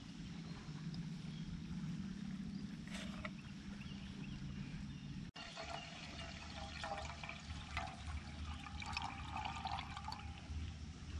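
Water squeezed through a bottle filter trickling and splashing into a metal camp mug, in uneven spurts through the second half. The first five seconds hold only a low steady hum, and the sound cuts off abruptly at about five seconds.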